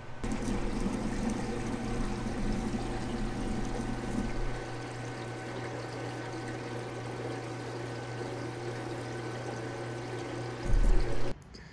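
Water turned on at a wall tap and running through a hose into an aluminium fuel tank, filling it for a leak test; stronger for the first few seconds, then steadier. A brief loud thump near the end.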